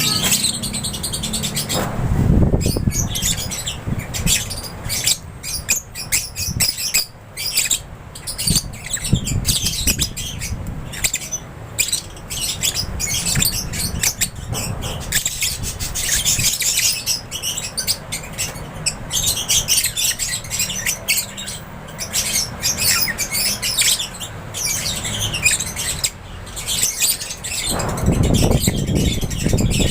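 A flock of lovebirds chirping and squawking over one another without a break, with a few low rumbles, one about two seconds in and a longer one near the end.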